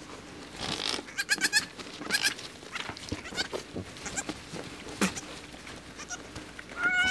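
Nigerian Dwarf goats bleating: short, high-pitched calls, some in quick runs of several notes and a longer one near the end, typical of newborn kids. Under them is the soft rustle of a towel rubbing a wet newborn kid dry.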